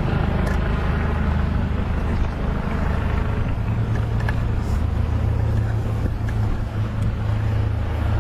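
Engine and road noise heard from inside a moving vehicle: a steady low drone whose pitch steps up about four seconds in.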